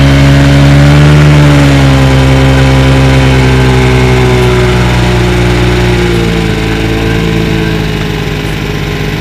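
Engine of a lure-coursing machine running steadily, its pitch rising a little about a second in and then easing down, with a further drop in pitch around two-thirds of the way through.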